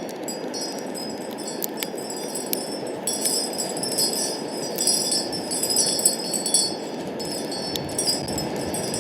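Wind rushing steadily, with high metallic chiming tones ringing and tinkling over it, several at once, swelling from about three seconds in. Scattered light clinks come through as well.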